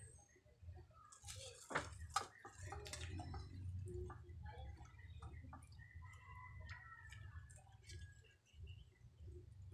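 Faint clicks and knocks of clear plastic water filter housings being gripped and handled, a cluster of them about two to three seconds in, over a low steady rumble.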